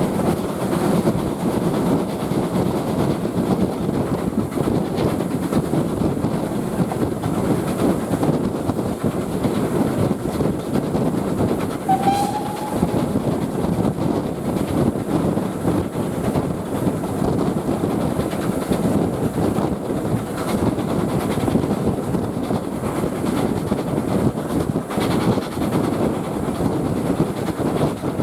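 Heritage train in motion: a steady rumble with wheels clattering over the rail joints. About twelve seconds in comes one short, slightly rising whistle.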